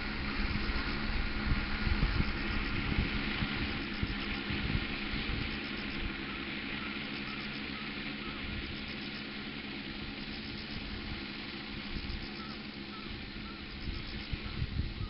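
Rotors of a 10-litre agricultural spraying drone in flight, a steady hum that eases a little midway, with wind buffeting the microphone at the start and again near the end.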